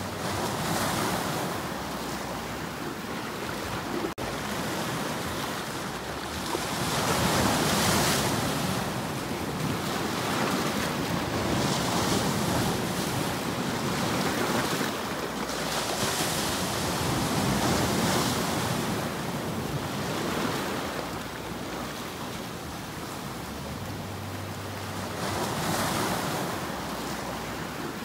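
Sea waves washing in and breaking over shoreline rocks, the surf swelling and easing every few seconds.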